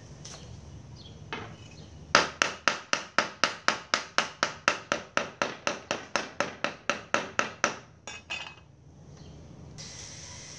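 Kitchen cleaver chopping on a thick round wooden chopping board: a fast, even run of knocks, about four a second, starting about two seconds in and stopping after some five seconds, with a couple of last strokes.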